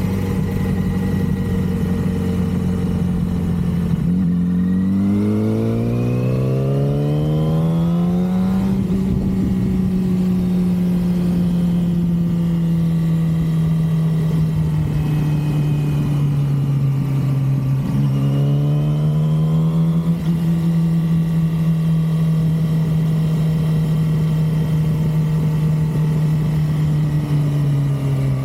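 Yamaha R6 (2006) 600 cc inline-four engine running under way: its note rises steadily for about four seconds as it accelerates, then holds steady, with a second shorter rise a little past the middle.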